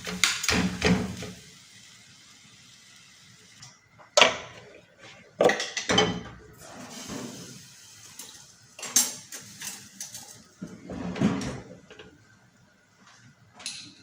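Kitchen dishes and utensils clattering: groups of sharp knocks and clinks, about six of them, with quiet pauses in between.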